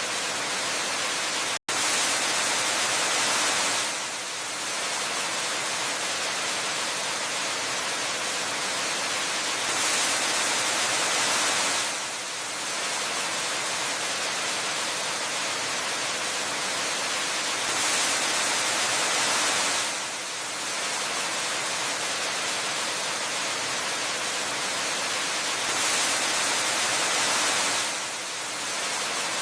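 Waterfall rushing as a steady, hissing white-noise wash. It swells a little louder for a couple of seconds about every eight seconds, and drops out for a split second about one and a half seconds in.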